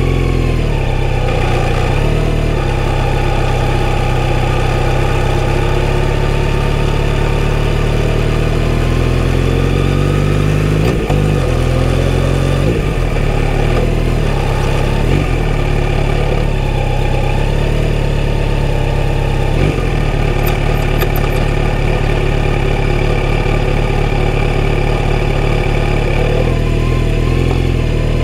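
Kawasaki Z900RS inline-four through a full-system exhaust, heard from the rider's seat at low city speed. Around the middle the revs climb and drop back a few times as it pulls away and shifts up, then it runs steadily at low revs.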